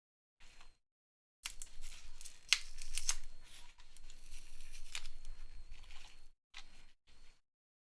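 Glued battery cells of a MacBook Pro A1502 being pried off the case, their adhesive loosened with isopropyl alcohol: crackling, tearing noise with a few sharp clicks from the pry tool. It starts about a second and a half in and stops near the end.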